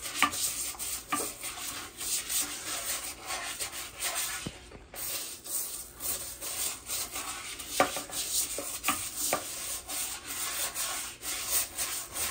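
Toilet brush scrubbing the inside of a porcelain toilet bowl, its bristles rubbing and swishing through foamy water in quick repeated strokes, at rust stains that the foam cleaner did not lift. There is a brief pause about five seconds in.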